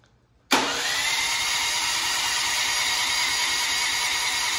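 Westinghouse WGen9500DF generator's single-cylinder engine catching suddenly about half a second in and running steadily at speed. Its fuel valve is still shut, so it runs only on the fuel already in the carburettor; the owner reckons that is why it stopped.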